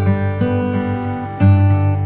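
Background music: acoustic guitar strumming, with a new chord about every second.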